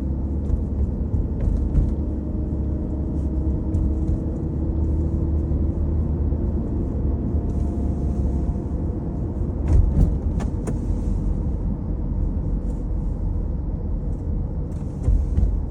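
Car driving at about 25 mph, heard from inside the cabin: a steady low rumble of engine and road. The engine keeps running throughout. A few short clicks sound about ten seconds in.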